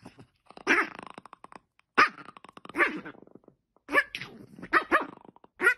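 A dog hidden under a fluffy blanket growling and barking in short bursts, about one a second, as a hand reaches in: playful mock attacks.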